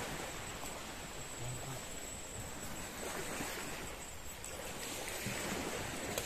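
Steady wash of sea surf and wind noise, with no distinct events.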